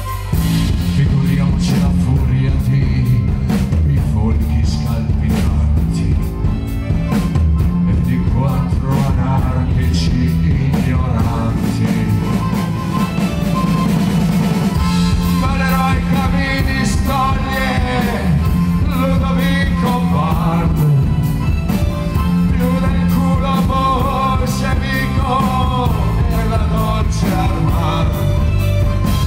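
Live rock band with piano accordion, drum kit and electric bass, playing loud with steady drumming; a sustained melody line in the middle range comes up more strongly about halfway through.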